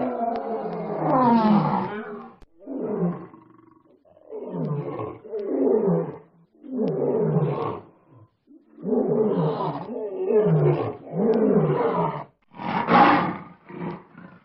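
Lion roaring in a bout of repeated calls about one to one and a half seconds apart. Each call falls in pitch, and the calls grow shorter toward the end.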